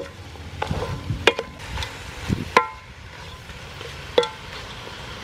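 Wooden spatula stirring chicken pieces in a metal cooking pot, knocking against the pot several times; the louder knocks ring briefly with a metallic tone.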